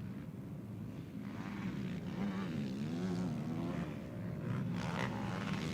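Racing quad bike (ATV) engines running on a motocross track, revving up and down as the riders accelerate and back off.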